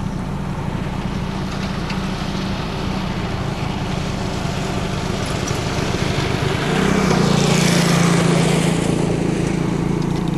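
An engine running steadily. About two-thirds of the way in, its note steps up and grows louder, with a rushing hiss over it for a couple of seconds.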